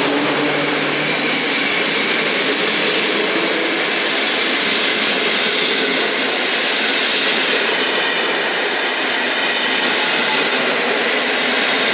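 PKP Intercity passenger coaches passing close by at speed: a steady, loud rush of steel wheels on rail and moving air.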